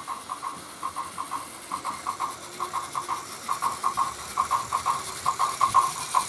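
Plarail toy train of the Osaka Loop Line 323 series running on plastic track: rhythmic clicking in groups of three or four, about one group a second, growing louder as the train approaches.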